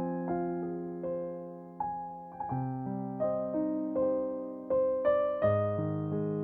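Gentle solo piano background music: notes and chords struck one after another, each left to ring and fade.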